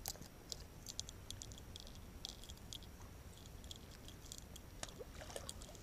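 Faint, irregular light clicking and ticking of a plastic squarebill crankbait and its treble hooks as the lure is worked out of a pickerel's mouth by hand.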